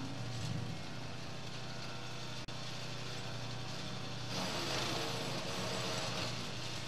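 Small petrol engine of a garden wood chipper running steadily, with a louder stretch of rushing noise about four and a half seconds in.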